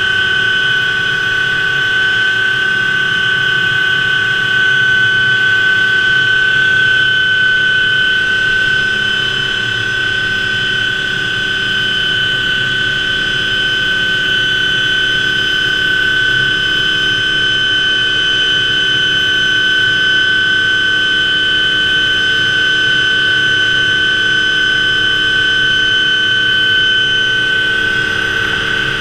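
Hughes OH-6A helicopter heard from inside its cockpit: the Allison T63 turboshaft's steady high whine, two steady tones, over a low rumble from the rotor.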